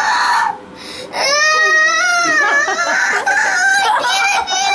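A young boy wailing and crying in distress: a short cry, a brief pause, then a long wavering wail, with more cries near the end. He is frightened as his loose, bleeding baby tooth is being pulled out.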